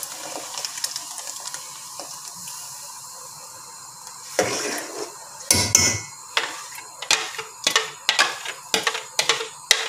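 Thick fruit pulp poured into a metal pot of hot syrup, with a soft hiss. About halfway through comes a louder slosh or two, then a spoon clinks and scrapes against the bowl and the pot about three times a second.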